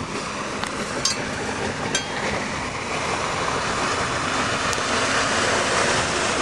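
A motorboat running and water rushing in a steady noisy wash that grows louder from about two seconds in, with a few light clicks in the first two seconds.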